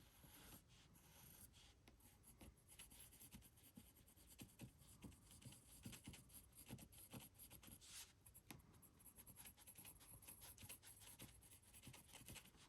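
Fine nib of a Montblanc 221 fountain pen scratching faintly in many short, irregular strokes.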